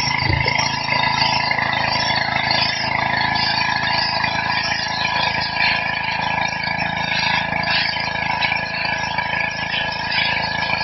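Petrol-engined high-pressure washer running steadily, its engine's hum under the hiss of the water jet spraying onto stone paving.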